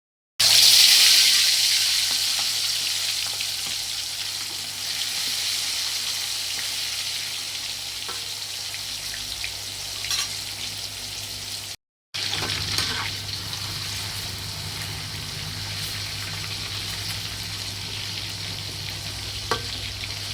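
Chicken pieces frying in hot oil. A sudden loud sizzle as they go in eases to a steady sizzle. It breaks off for a moment about twelve seconds in and picks up again, with a few light clicks.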